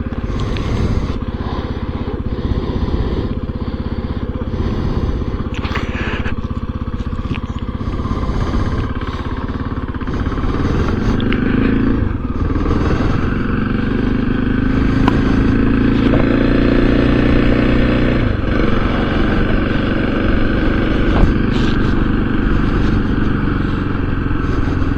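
Motorcycle engine running under way, picked up by a helmet-mounted microphone together with a steady rush of wind noise. The engine note rises and falls around the middle.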